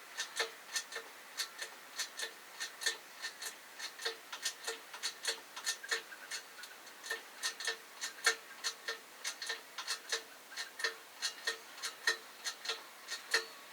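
Steady, regular clicking, about three sharp ticks a second, keeping an even pace throughout.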